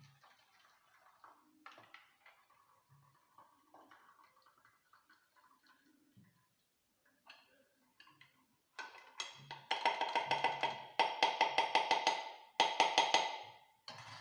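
Faint handling noises, then about nine seconds in three bursts of rapid scraping and clicking of a metal utensil against a ringing metal pot or strainer as boiled wormwood is pressed and strained.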